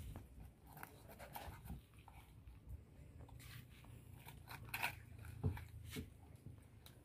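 Knife and hands working a whole tuna on a wet cutting board: scattered crunches of the blade in flesh and bone, with taps and knocks as the fish is handled, the loudest about five and a half seconds in.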